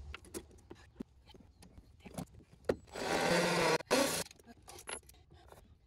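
A small power screwdriver driving a screw into a wooden block, running in two short spurts about three and four seconds in. Before that come a few light knocks and clicks as the wood and tool are handled.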